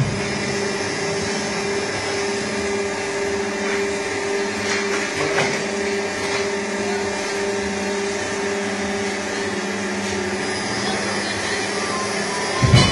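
A double-side auto-feeding box cutting machine running, with a steady electric motor hum over a hiss, a few light knocks in the middle and a sharp knock near the end.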